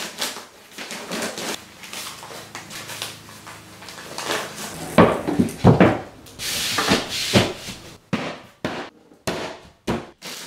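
Rustling and knocking as a batt of insulation is stuffed into open wooden soffit framing, then a sheet of green drywall is lifted and bumped into place against the wood. The loudest knocks come about five to six seconds in.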